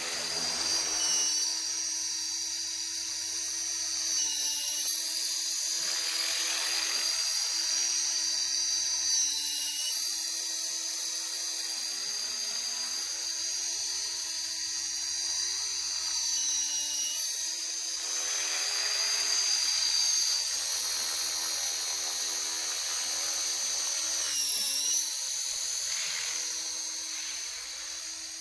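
Engine running with a high-pitched squeal over it. The throttle is blipped a few times, and the squeal dips in pitch and returns with each blip. The squeal is the annoying squeaky noise that shows up when blipping the throttle; its cause is not known.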